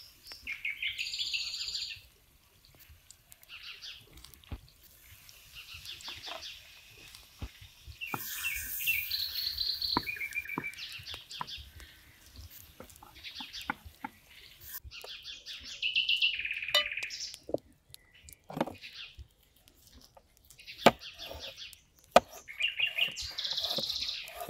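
Songbirds chirping and singing in short repeated phrases, with scattered sharp clicks and taps of cooking utensils on a pan and a cutting board.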